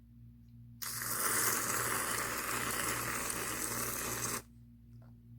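Aerosol can of whipped cream spraying onto a cup of coffee: a hissing, sputtering spray that starts suddenly about a second in and cuts off after about three and a half seconds.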